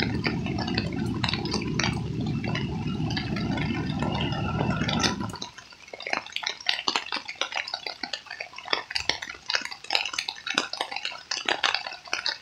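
A steady low rumble that cuts off suddenly about five seconds in, then many irregular drips and small splashes of water.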